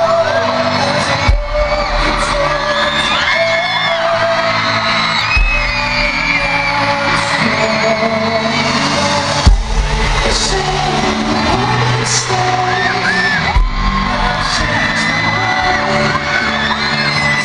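Boy band singing live over a pop backing track, with a deep bass hit about every four seconds, and a large crowd of fans screaming over the music throughout.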